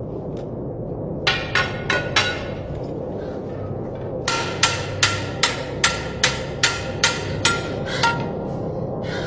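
Hand or fist banging repeatedly on a hollow cell wall, sharp knocks each with a short metallic ring. Four quick knocks come about a second in, then an even run of about ten at two or three a second, over a low steady drone.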